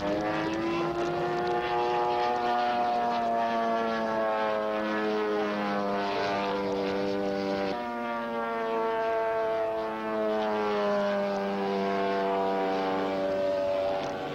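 Large radio-controlled Bücker Jungmeister model's King 140cc engine and propeller running in flight, its pitch rising at the start, then holding fairly steady with slow small rises and falls.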